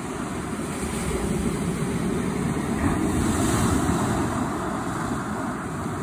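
Big Lake Superior waves surging onto a pebble beach: a steady rushing wash that builds to its loudest about halfway through.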